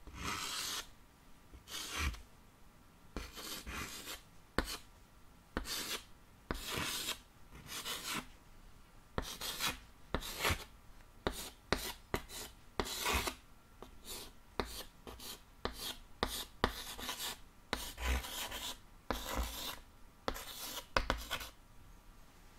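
Chalk writing on a chalkboard: a long run of short, scratchy strokes, one after another with brief pauses between letters.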